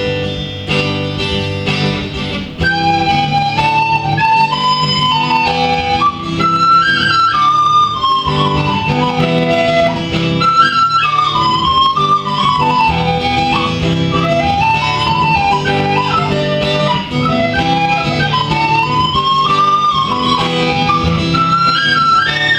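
Instrumental music without singing: a lead melody rising and falling over a plucked guitar accompaniment.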